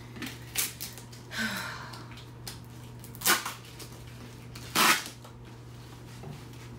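Packing tape and wrapping being ripped and peeled off a box by hand: a few short tearing rips with rustling between, the two loudest about three and five seconds in.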